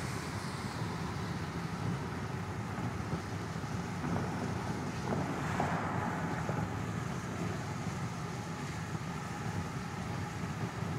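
Steady road and engine noise of a moving car heard from inside the cabin, a low rumble under a haze of tyre and wind hiss, swelling briefly about five seconds in.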